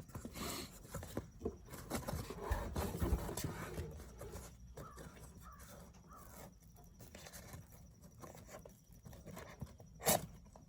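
A thick-bladed Medford ASK folding knife forced through a folded corner of cardboard, crunching and scraping in uneven spurts as the blade wedges and crushes the cardboard instead of slicing cleanly. A sharp click near the end.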